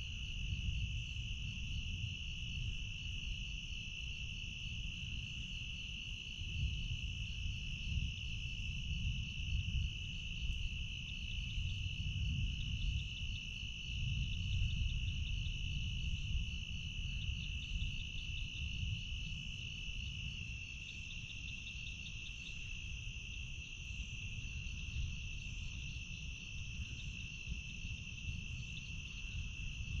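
Crickets trilling steadily at one high pitch, with a faster pulsing chirp joining in twice, over a low, uneven rumble.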